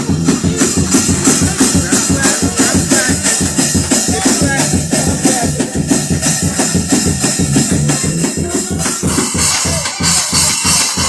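Fast, up-tempo gospel praise-break music with a steady, driving beat of drums and shaken percussion.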